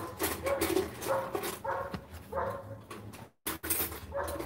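A dog whining in short, repeated pitched calls, with sharp clicks and clatter from a utensil in a metal cooking pot.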